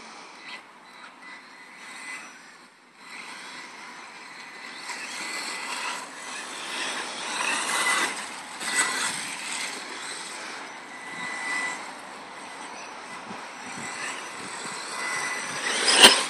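Electric 1/10-scale RC off-road cars (an Associated SC10 4x4 short-course truck and a Durango DEX410 buggy) running on an artificial-turf track: motor whine and tyre noise rising and falling with throttle, loudest about eight seconds in. A sharp knock near the end.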